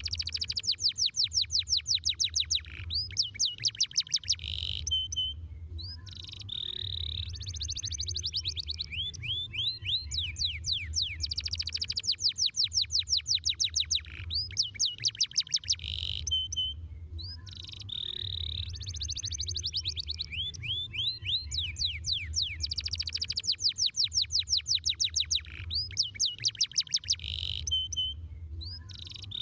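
Domestic canary singing: long phrases of fast, high-pitched rolling trills, each lasting a few seconds, separated by brief pauses.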